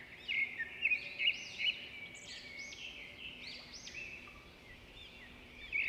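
Birdsong: a stream of short, high chirps one after another, louder in the first couple of seconds.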